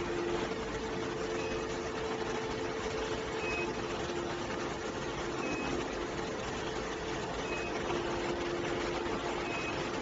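Steady factory-floor machinery noise with a low hum, and a short high beep repeating about every two seconds.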